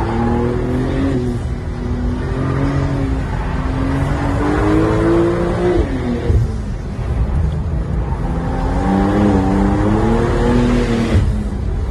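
Porsche 911 Turbo S twin-turbo flat-six, heard from inside the cabin, pulling hard. Its pitch climbs twice, about four seconds in and again near the end, and each climb ends in a sharp drop.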